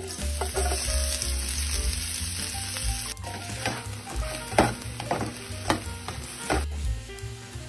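Chopped spring onion sizzling as it lands in hot olive oil in a frying pan. From about three seconds in, a spatula stirs it with several scrapes and taps against the pan. The sizzle cuts off about a second before the end.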